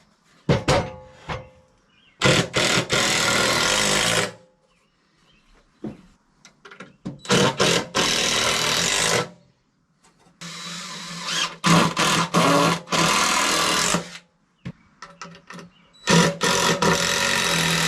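Power drill driving screws into wood, four separate runs of a couple of seconds each, with a few short knocks of wood being handled near the start.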